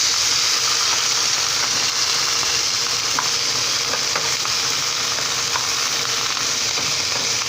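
Steaks and onions frying in hot canola oil in a pan, a steady sizzle with scattered small pops and crackles.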